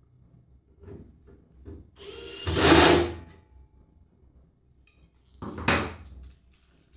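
A cordless drill-driver runs for about a second, driving a small screw into a battery case, with a few light clicks before it. A shorter clatter follows near the end.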